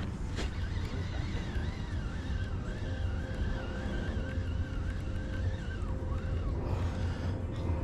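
A boat's outboard motor running steadily, a low rumble under way. A wavering high tone sounds over it from about a second in until near the end.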